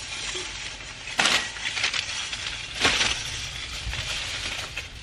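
Groceries in plastic shopping bags rustling and being set down in an SUV's cargo area, with two sharper, louder sounds about a second in and just before three seconds.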